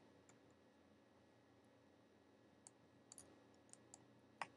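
A few faint computer mouse clicks over near silence, scattered through the second half, with one sharper click near the end.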